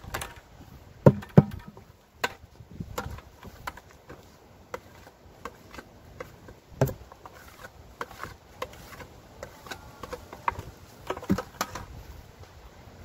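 Irregular knocks, taps and rustling of a plastic bucket being tipped out and handled over a tub of soil and dry scraps, with two sharp knocks about a second in.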